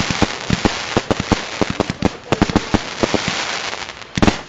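Fireworks going off: rapid, irregular bangs, several a second, over a continuous hiss and crackle, with a cluster of louder bangs near the end.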